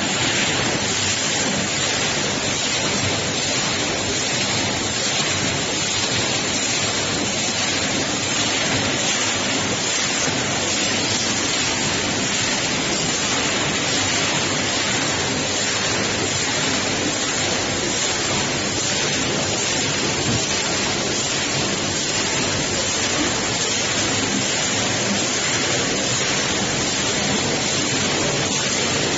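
Two-head weighing and bagging machine running, with granular product rattling through it and pouring into bags as a steady, even rushing hiss.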